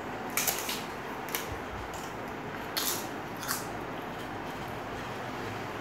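Crisp appalam (papad) being crushed and broken up by hand: a few short dry crackles in the first three and a half seconds, then only a low steady background.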